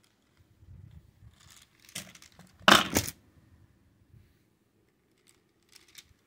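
Toy keys rattling: a short clatter about two seconds in, then a louder one lasting under half a second, with a few faint clicks near the end.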